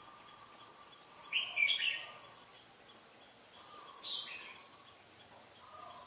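Red-whiskered bulbul singing two short bursts of quick chirping notes, the first and louder about a second in, a shorter one about four seconds in.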